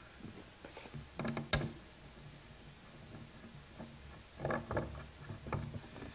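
Light clicks and knocks of hardware being fitted by hand to a wooden cabinet's desk front. There are a few short ones about a second and a half in, and a second cluster from about four and a half to six seconds in.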